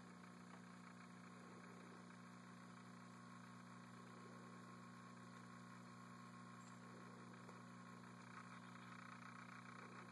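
Near silence: only a faint, steady background hum.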